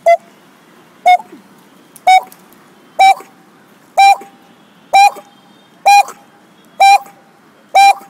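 A man imitating a barbet's call with his voice: nine short, identical pitched notes, evenly spaced about one a second.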